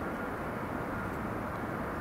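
Boeing 767-300 airliner's jet engines running steadily on the runway: an even, distant rumble with a faint steady whine.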